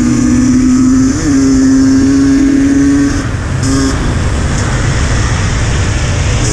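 Enduro dirt bike engine running hard at a steady high pitch, with a short blip about a second in. About three seconds in the engine note drops away, leaving loud rushing wind and gravel noise as the bike coasts.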